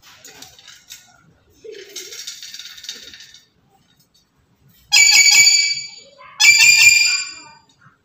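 Black-capped lory calling twice, loud, each call about a second long, after some quieter sounds.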